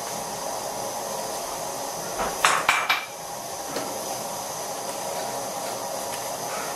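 Electric countertop blender running steadily, mixing crepe batter. About two seconds in there is a short clatter of three or four knocks, like dishes or utensils.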